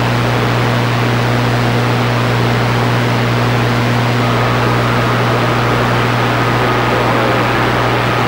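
CB radio on receive with no one talking, its speaker putting out steady static hiss over a low hum, the sound of an open, unmodulated channel. A faint steady whistle joins about halfway through.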